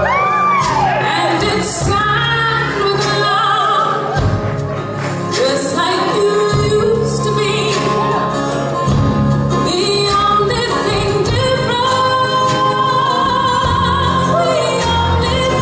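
Live string band playing a country song: a woman sings lead with vibrato over upright bass, banjo and drums.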